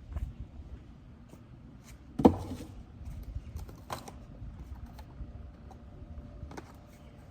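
Light clicks, taps and rustles of camping gear being handled, with one louder thump a little over two seconds in.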